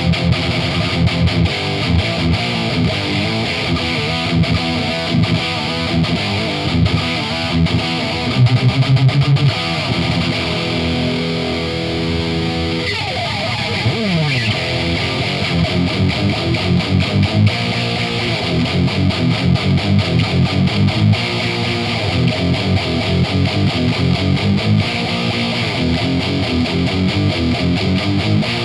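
Heavy distorted electric guitar with a Seymour Duncan Dimebucker pickup, played through a Randall RG100HT amp with an MXR six-band EQ and Furman PQ4 in the chain, playing metal riffs. About halfway through there is a falling slide in pitch. Fast repeated low notes follow.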